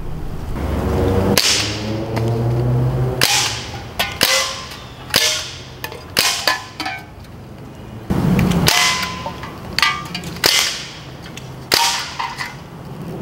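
Umarex Ruger 10/22 CO2-powered .177 pellet rifle being fired repeatedly, about ten sharp pops spaced roughly a second apart, some followed by a short ring.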